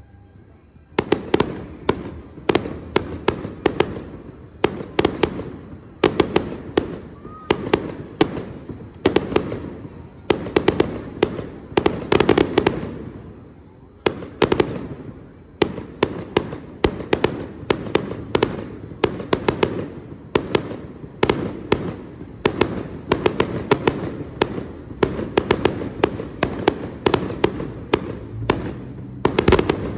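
Aerial fireworks display: shells bursting in a dense barrage of sharp bangs, several a second and often in quick clusters, each trailing off in echo. The bangs start about a second in after a short lull.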